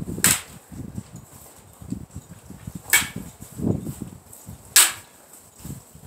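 Three sharp clacks of sparring weapons striking each other, roughly two and a half and then two seconds apart, with a low rumble of wind on the microphone in between.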